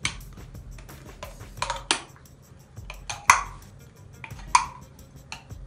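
A metal spoon clinking and scraping against a small glass jar as thick spinach purée is scooped out into a glass mixing bowl. It makes a handful of short, sharp clinks, the loudest about three seconds in.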